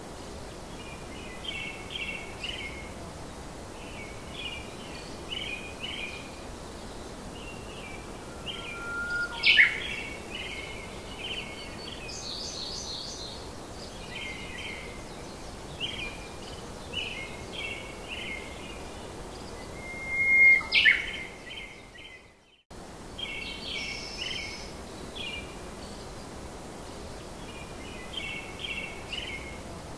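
Small birds chirping in short repeated bursts over a steady outdoor hiss, with two louder rising chirps about ten and twenty-one seconds in. The sound cuts out briefly just after the second one.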